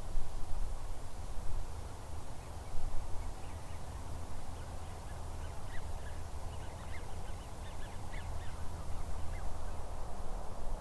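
A distant flock of geese and ducks calling, with many short high calls that grow thickest through the middle, over a steady low rumble.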